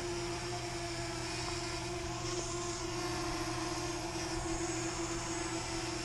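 Small quadcopter camera drone, a DJI Spark, flying, its propellers giving a steady hum.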